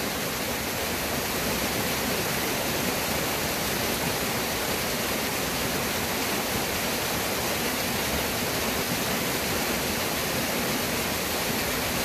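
Waterfall pouring over a rock ledge into a pool, a constant even rush of water.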